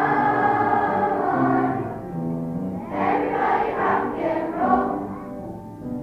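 Large children's choir singing a song together in phrases of held notes, softer for a moment midway and again near the end.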